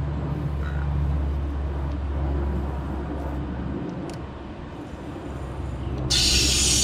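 A steady low mechanical hum, then about six seconds in a sudden loud hiss of water rushing from a garden hose as the cooling-system flush starts.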